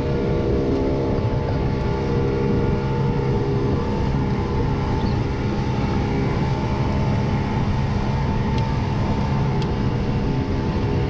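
Outboard motor running steadily at speed, driving an inflatable boat across the water.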